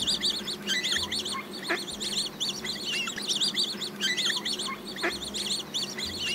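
A flock of white domestic ducks calling: a dense chatter of short, high-pitched calls that overlap one another.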